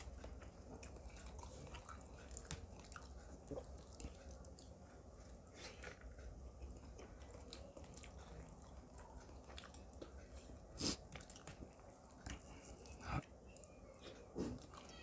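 Faint close-up chewing of a mouthful of chicken korma and rice: wet mouth sounds with scattered small clicks and two sharper smacks near the end.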